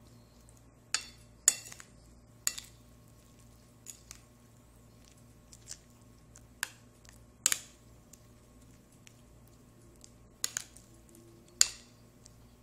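Metal spoon clinking against a ceramic plate while mixing oatmeal and sliced banana: sharp, irregular clinks every second or so.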